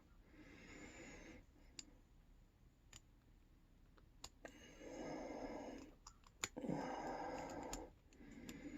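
Faint, scattered metallic clicks of a lock pick working the pin stack of an all-brass Yale pin-tumbler padlock with mushroom security pins, alongside soft breaths close to the microphone.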